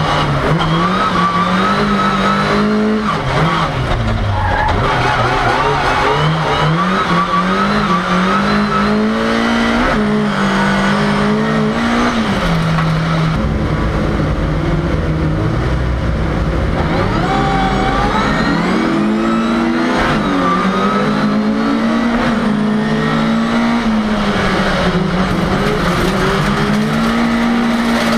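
Ford Cortina race car heard from inside the cabin, its engine pitch climbing and dropping again and again as it accelerates, shifts and slows, with tyres squealing at times.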